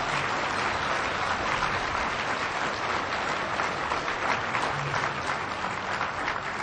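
Audience applauding: many hands clapping in a steady wash that eases off slightly near the end.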